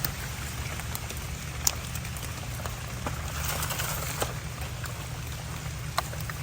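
Rain pattering on forest leaves, with scattered sharp drop ticks over a steady low rumble, and a brief swell of hiss a little past the middle.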